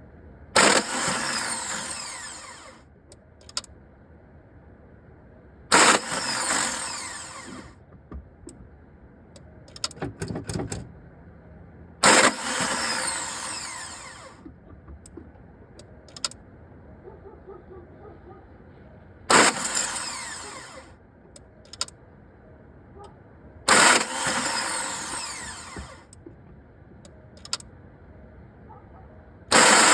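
VW Beetle ALH diesel's starter motor run in repeated short bursts about every five or six seconds. Each burst starts sharply and winds down with a falling whine, and the engine never catches; the owner says the starter spins but nothing engages. Small clicks come between the attempts.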